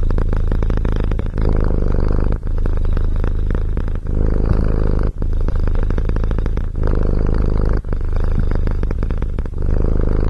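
Tabby cat purring loudly close up, the purr breaking briefly at each breath about every second or so.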